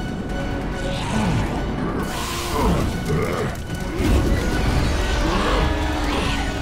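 Action film score mixed with fight sound effects: crashes and impacts, loudest about two and four seconds in, with sweeping whooshes.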